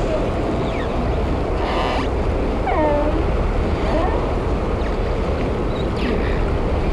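Steady low rumble of harbour wind and sea, with a few faint calls of other people's voices a couple of seconds in.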